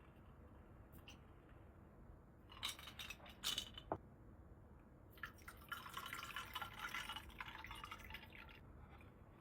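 Glassware clinking a few times, then liquid being poured for about three seconds.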